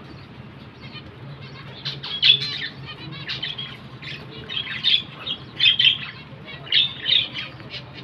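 Small caged finches calling: repeated short chirps and squeaks from several birds, coming in quick clusters from about two seconds in.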